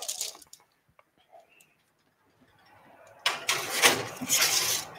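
An oven door opened and a baking tray slid in onto the rack: a few faint clicks, then about three seconds in a loud scraping rush in two parts lasting about a second and a half.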